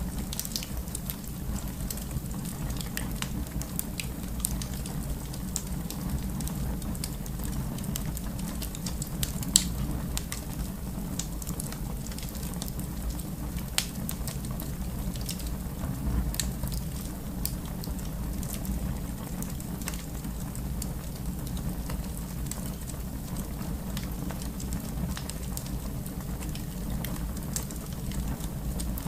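Fire burning in a fireplace: a steady low rumble and hiss with scattered crackles and pops, the sharpest pop about ten seconds in.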